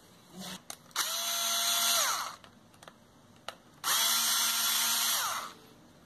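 Power screwdriver backing out the small terminal screws of a wall light switch to free its two wires. It runs twice, each time for about a second and a half: the motor winds up, holds steady, then winds down.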